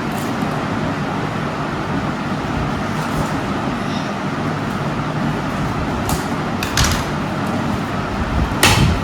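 Steady background rumble, with a parcel's packaging being handled and torn open: a few sharp crinkles past the middle and a louder one near the end.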